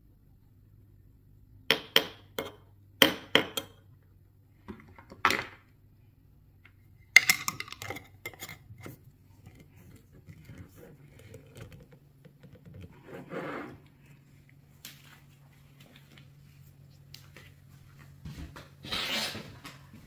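Metal spoon clinking against a glass mason jar, several sharp taps in the first half as syrup is scraped off into it, followed by softer scraping and rubbing as the jar's metal screw lid is closed.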